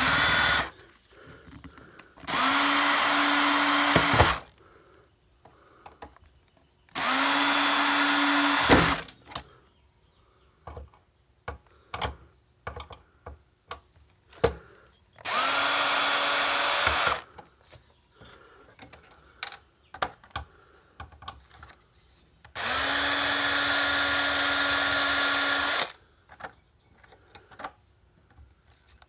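Electric drill-driver backing out screws from a circuit board, run in five separate bursts of about two to three seconds each, the first very short. Each run spins up quickly to a steady whir and stops abruptly. Small clicks and taps come between the runs.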